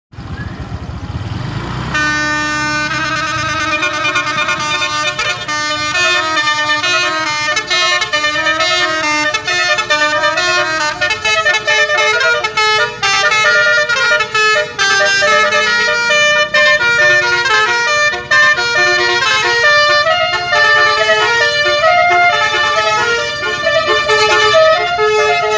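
Basuri 'telolet' multi-tone bus horn playing a quick tune of stepping horn notes without a break. It starts about two seconds in, after a low rumble.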